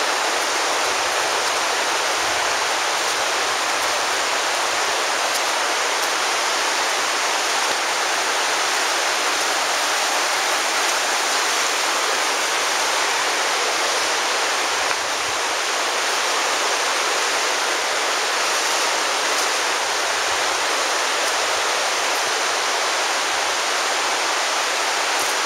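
The Virgin River flowing, a steady, unbroken rush of water.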